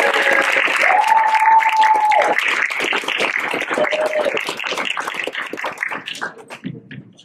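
Audience applauding, with a couple of drawn-out cheers over the clapping. The applause fades away about six seconds in.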